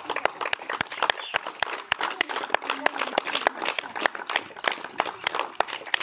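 Onlookers clapping and applauding, a dense, uneven run of sharp hand claps.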